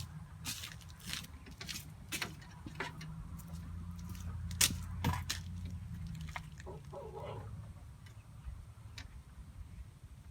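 Scattered clicks and light metallic knocks of small parts and tools being handled, over a low steady hum.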